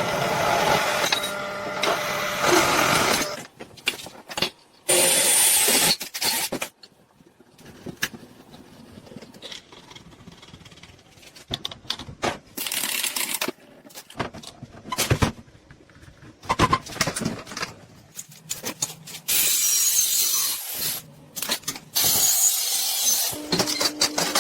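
MIG welding and shop work: several bursts of crackling hiss, each a second or two long, with sharp clicks and knocks between them.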